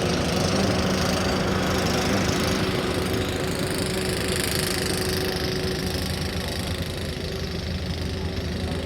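Diesel engine of a JCB 225LC tracked excavator running steadily with an even, low note, easing slightly in the second half.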